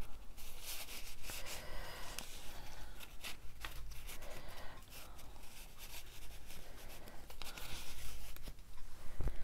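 Paper and card rustling and scraping against each other, with scattered light taps and clicks, as cards are handled and slid into paper pockets.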